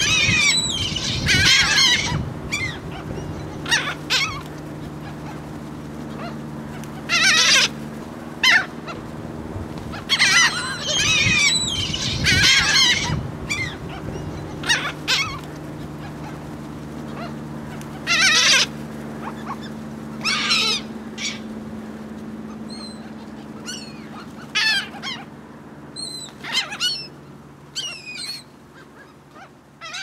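A flock of gulls calling overhead, loud cries in bunches of several every few seconds. A steady low hum runs underneath.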